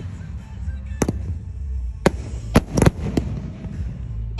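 Fireworks going off in a few sharp bangs: one about a second in, then a quick run of three close together a little past halfway.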